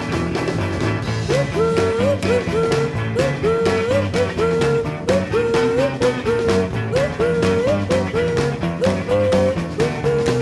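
Background music: an upbeat rock and roll song with a steady beat, guitar and a repeated sliding phrase that rises into a held note.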